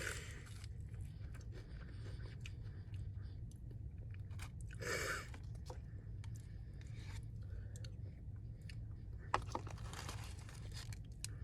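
Close-miked chewing and crunching on crispy fried chicken, with scattered crisp crunches and louder bites about five seconds in and again near ten seconds, over a low steady hum.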